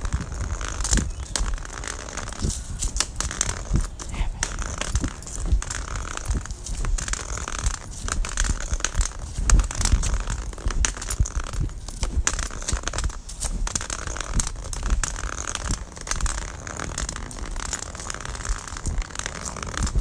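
Handling noise of a phone voice recorder being carried: continuous rustling and crackling with many small clicks over a low rumble, its loudness jumping about.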